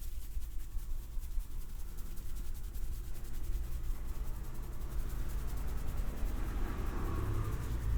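Hands rubbing and kneading a head in a massage: a soft, noisy rubbing that grows louder over the last few seconds, over a low steady hum.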